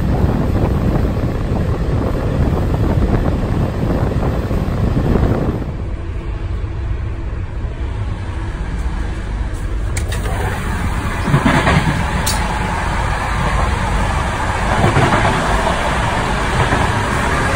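Running noise of a moving passenger train: a loud rush of wind and track rumble at an open window, then, after an abrupt change about six seconds in, the quieter rumble heard inside a carriage, which grows louder again toward the carriage-end door, with a couple of brief clicks.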